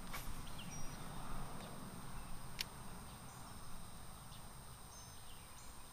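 Quiet outdoor ambience: a steady low rumble, two sharp clicks (just after the start and about two and a half seconds in), and a few faint, short, high chirps.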